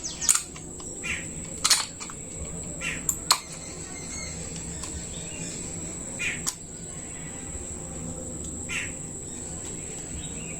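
A few sharp metallic clicks and taps as the parts of a motorcycle electric starter motor are fitted together by hand, with short bird chirps now and then in the background.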